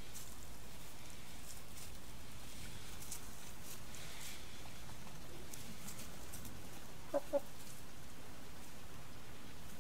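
A domestic chicken clucks twice in quick succession about seven seconds in, over low steady background noise.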